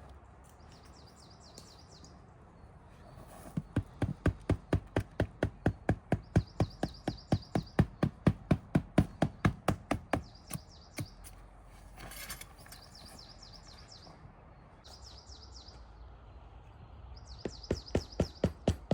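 A fast, even run of sharp knocks, about four a second, lasting several seconds and starting again near the end. Over it, a small bird's short high trill repeats every second or two.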